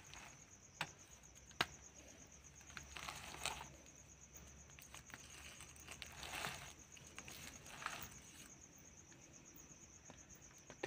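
Crickets trilling steadily in a high, fine pulse, faint, with a few soft clicks and rustles near the microphone.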